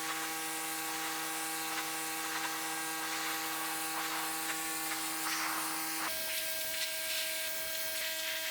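A steady electric motor buzz made of several fixed tones. About six seconds in it switches abruptly to a different pitch.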